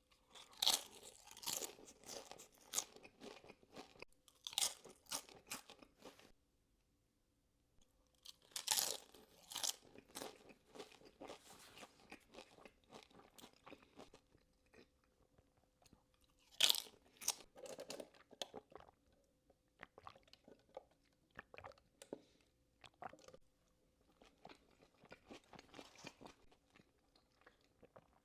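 Close-miked eating of crunchy food: several loud crunching bites, each followed by stretches of quieter chewing.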